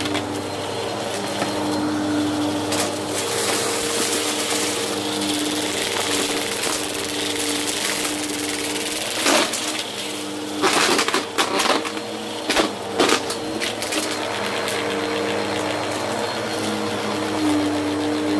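Bissell CleanView upright vacuum running steadily on carpet, with light crunching and crackling as it sucks up small scattered bits of debris, most of it in a cluster about halfway through.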